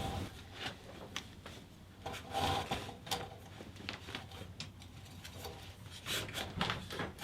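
Curtain and curtain rod being taken down by hand: scattered light clicks and knocks, with brief rubbing and rustling of fabric and rod.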